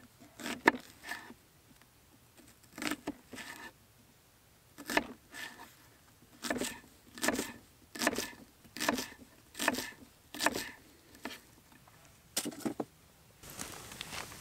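Kitchen knife chopping a shallot on a wooden cutting board: a series of knocks, uneven at first, then an even beat of a little more than one chop a second. Near the end the chopping stops and a faint steady hiss with small crackles of a campfire comes in.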